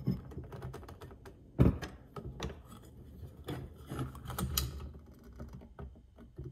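Irregular small metallic clicks and taps as a wrench is worked on the nut that holds a vanity light fixture's arm to its metal backplate, with one louder knock about a second and a half in.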